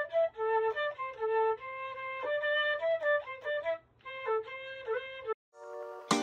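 Solo instrumental melody of held notes with a few slides between them, with a brief break in the middle; it stops about five seconds in. A louder burst of sound comes at the very end.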